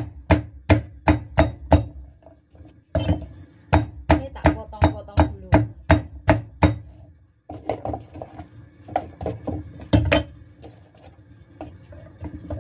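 A cleaver chopping pieces of fresh coconut on a chopping board, with sharp strokes about three to four a second and a short pause about two seconds in. After about seven seconds the knocks become softer and uneven, with one harder stroke near ten seconds.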